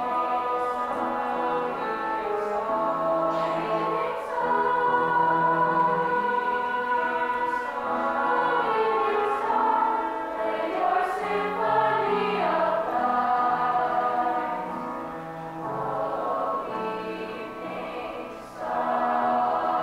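Middle-school choir singing in parts, accompanied by a bowed cello holding low notes. The music grows softer in the last third and swells back up near the end.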